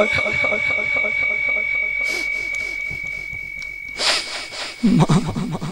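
Public-address feedback: a steady high whistling tone rings for about four seconds, then stops with a short noisy burst. A man's voice comes in briefly near the end.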